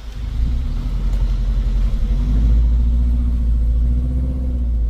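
Off-road jeep engine running under load with a heavy low rumble, its note rising slightly a little over two seconds in.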